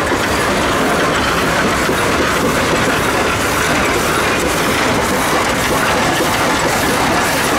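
Minneapolis steam traction engine driving past close by, a steady rhythmic chuffing and clanking of its running gear and steel wheels.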